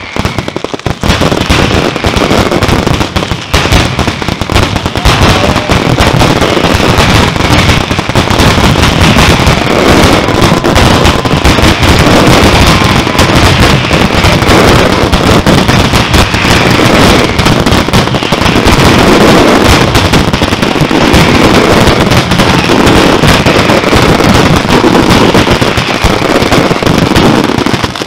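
Valencian-style night ground display ('nocturna'): firecrackers and salutes hung on a wire rack go off in a dense, unbroken barrage of bangs and crackle. It is thinner for the first second or two, then very loud and continuous.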